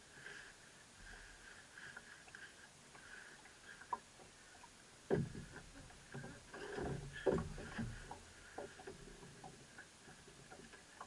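Knocks and thuds from gear being handled inside a small open boat, starting about five seconds in, over faint regular lapping of water against the hull with the outboard motors off.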